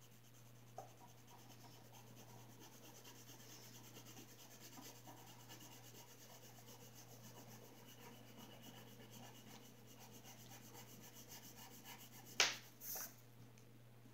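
Colored pencil scribbling back and forth on paper, a faint steady scratchy rubbing as an area is shaded in. A sharp click and a smaller one come near the end, as the pencil is put down on the table, over a low steady hum.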